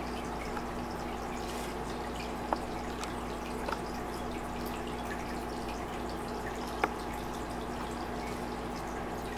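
Steady aquarium water trickle and drip with a low steady hum, broken by three short sharp clicks.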